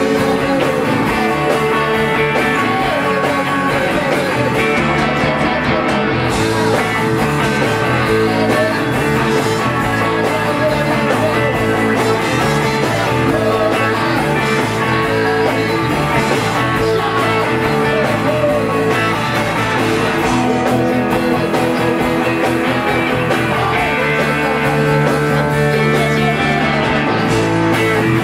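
A live rock band plays loudly on electric guitars, bass and drums.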